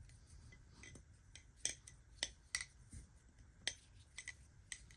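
Marcolo Comet balisong being flipped: about a dozen light, sharp metallic clicks at an uneven pace as the handles swing and knock against the blade tang and each other.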